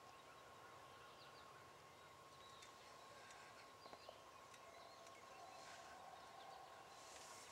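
Near silence: faint outdoor ambience with a thin steady high tone, a few faint short bird chirps, and a couple of faint ticks about four seconds in.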